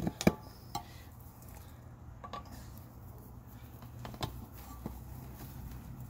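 Tire levers clicking and knocking against a dirt bike wheel rim as the tire bead is pried off. A few sharp clicks, the loudest just after the start, then scattered taps over a low steady hum.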